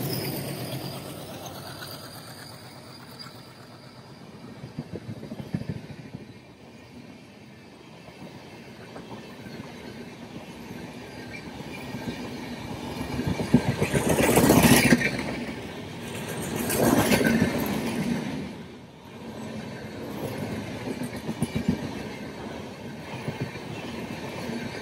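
LHB passenger coaches of an express train rushing past at speed: a steady rumble and rattle of steel wheels on the rails, with clicks over the rail joints and two louder swells about halfway through. The twin ALCo WDM-3A diesel locomotives ahead fade away over the first few seconds.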